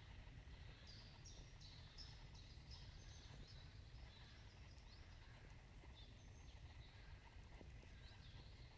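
Faint forest birdsong: one bird sings a phrase of about six quick high notes about a second in, with a few scattered high calls later, over a low steady rumble.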